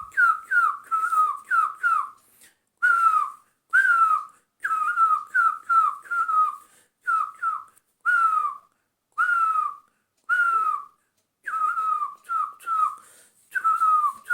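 A person whistling an imitation of a barbet's call, the Nepali nyauli (great barbet): short clear notes, each dropping a little in pitch, repeated in quick runs of two to four with brief pauses between.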